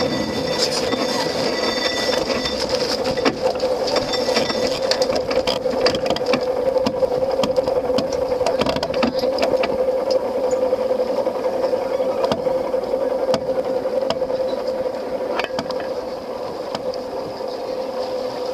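A steady mechanical hum with scattered clicks and rattles.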